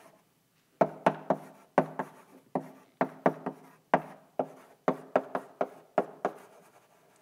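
Chalk tapping and clicking on a blackboard as someone writes: a run of sharp, irregular knocks, about two or three a second, each with a short ring, starting about a second in.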